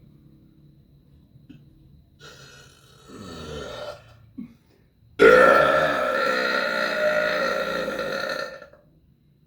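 A quieter throaty sound about two seconds in, then a long, loud, deliberately forced burp lasting about three and a half seconds, with a steady pitch, that stops abruptly near the end.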